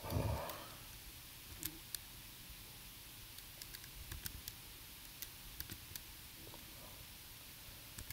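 Scattered light clicks of computer keys being pressed as code is stepped through one instruction at a time, with a soft low thump right at the start.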